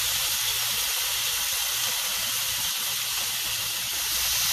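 Marinated chicken breast sizzling on a hot ridged grill pan: a steady hiss, growing a little louder near the end as a second piece is laid on with tongs.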